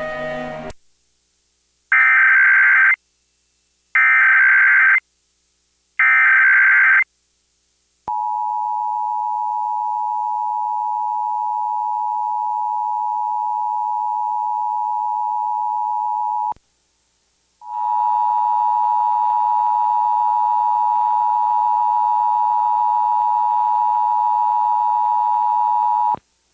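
Emergency Alert System test alert opening with three one-second bursts of the digital SAME header, a buzzing data sound. Then the steady two-tone attention signal sounds for about eight seconds. After a brief pause a second two-tone attention signal follows for about eight seconds, with a hiss of noise under it.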